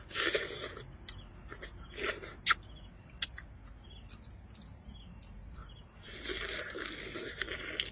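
A person eating hot noodles, with three noisy bursts of mouth sound, the last and longest near the end, and a couple of sharp clicks. Crickets chirp steadily behind.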